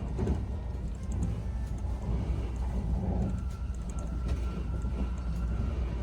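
Train running, a steady low rumble and hiss as heard inside the passenger car, with a faint steady high tone for a couple of seconds midway.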